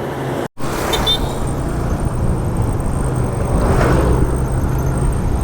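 Road traffic noise: engines running steadily, with a vehicle passing close by and swelling then fading about four seconds in. The sound cuts out completely for a moment just after the start.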